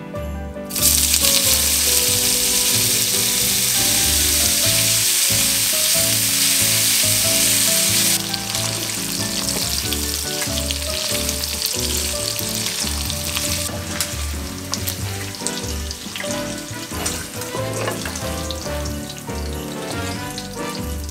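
Bacon strips frying in hot olive oil in a nonstick frying pan. A loud, even sizzle starts about a second in as the bacon hits the oil, drops abruptly after about eight seconds and again near the middle, then carries on quieter with light clicks from a wooden spatula stirring.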